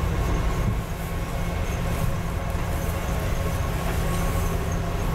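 Steady low rumble of a double-decker bus's engine and running gear, heard from inside the upper deck while the bus is moving, with faint light ticks and rattles above it.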